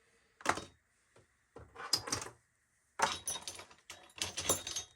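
Tools clattering and clicking as they are sorted into a toolbox drawer organizer, in several short bursts of rattling.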